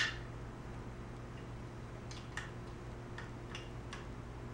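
A sharp click, then a scattering of light, uneven ticks from hand-tool work as an adjuster on the motorcycle's lever is loosened, over a steady low hum.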